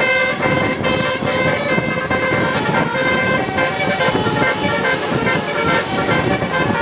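Tour bus's telolet horn, a Basuri multi-tone musical air horn, playing a melody of held notes that change every half second or so.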